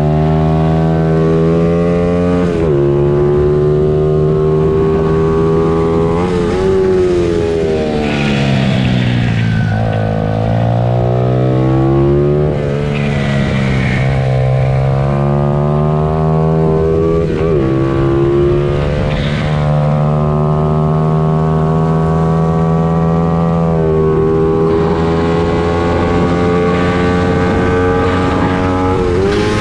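Pit bike engines running at high revs during a race. The pitch drops and climbs back several times as the bikes slow and accelerate again, with the deepest dip about a third of the way in.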